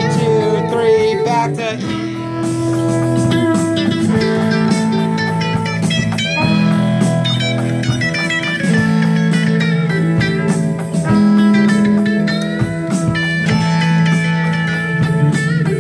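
Amplified electric guitars playing together in a band rehearsal. A lead line with bent notes runs over sustained lower notes.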